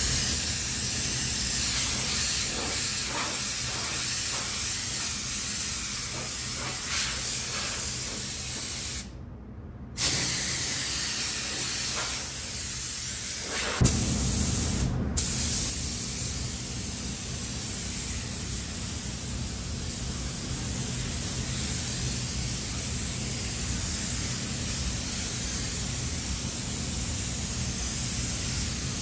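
Gravity-feed paint spray gun hissing steadily as it sprays colour onto the inside of a truck cab, over a faint low steady hum. The hiss breaks off for about a second some nine seconds in, and again very briefly near fifteen seconds.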